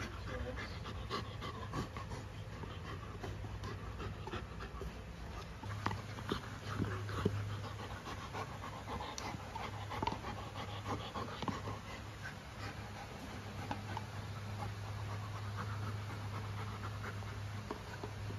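Golden retriever gnawing on a carabao horn chew: irregular scraping clicks of teeth on hard horn, with the dog panting.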